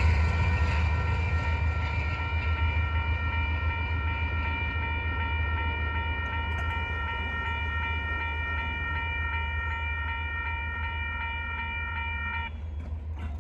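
Electronic crossing bell (E-Bell) at a railroad grade crossing ringing steadily over a low rumble from the passing Union Pacific coal train, which slowly fades. The bell cuts off suddenly about twelve seconds in as the gates rise, the crossing clearing after the train.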